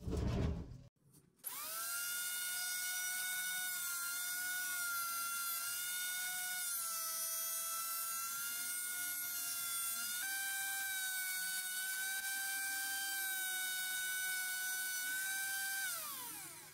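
Benchtop electric jointer switched on about a second in and running with a steady high motor whine while a wooden board is fed over the cutterhead. The pitch dips and shifts slightly a couple of times. Near the end it is switched off and the whine falls in pitch as the motor winds down.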